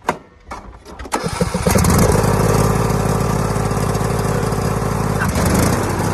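John Deere E100 lawn tractor engine being started: a few clicks, then the starter cranks about a second in, and the engine catches and runs steadily.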